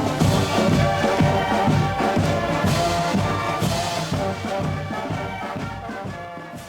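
Background music with brass and a steady beat, fading out toward the end.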